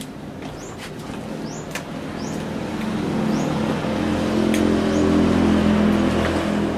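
A motor vehicle engine running steadily, growing louder from about two seconds in and holding near its loudest toward the end, with a few short high chirps over it.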